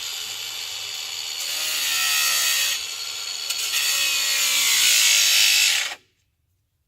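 Battery-powered angle grinder cutting into a steel PTO driveshaft, a loud high grinding with a brief lighter patch about three seconds in. It cuts off abruptly about six seconds in as the battery gives out.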